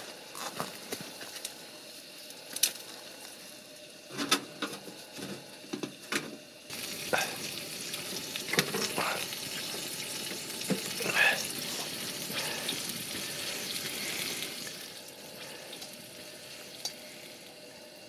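Wood fire crackling and snapping in a Seek Outside titanium tent stove, with small pine sticks being fed in through the open door. The hiss of the fire grows louder about seven seconds in and eases off again near the end.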